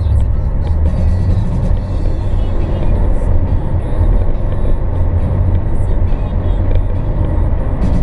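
Steady low road and engine rumble inside the cabin of a car cruising on a highway.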